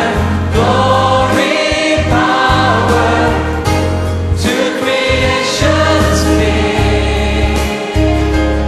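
Choir singing a hymn over instrumental accompaniment, with held bass notes.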